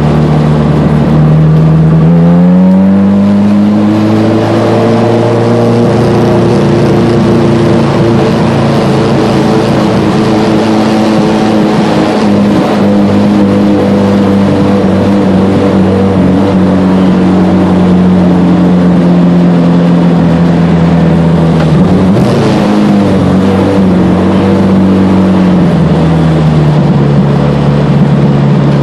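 Honda CRX engine heard from inside the cabin, running steadily at moderate revs. The revs climb a little about two seconds in, hold, then dip briefly and settle lower near the end.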